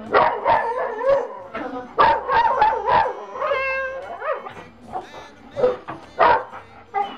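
Two dogs barking and howling in excitement: rapid repeated barks, with a drawn-out howl about halfway through.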